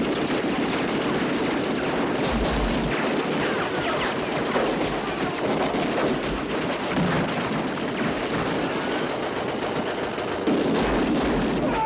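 Hand-cranked Gatling gun firing a long, unbroken burst: a dense, rapid rattle of shots that keeps up at a steady loudness, as a film sound effect.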